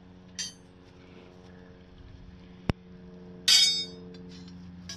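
Steel pole and rebar knocking together while the rebar is bent by hand: a sharp click, then about a second later a loud metallic clang that rings briefly. A steady low hum runs underneath.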